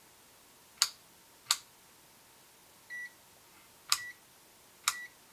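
Rotary selector dial of an Amazon Commercial 90DM600 multimeter being turned, clicking into position four times, with the meter giving short high beeps, one about three seconds in and brief ones just after the last two clicks.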